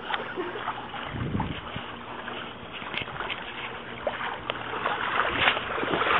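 Swimming-pool water sloshing and splashing as a person wades through it pushing an inflatable float, with many small splashes and a low bump a little over a second in.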